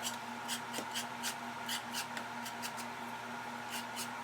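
Carrot being peeled by hand: quick scraping strokes about three times a second, over a faint steady hum.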